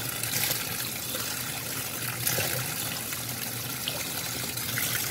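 A 2017 Speed Queen top-load washer filling: a stream of water pouring from the fill inlet into the tub, a steady rush of water.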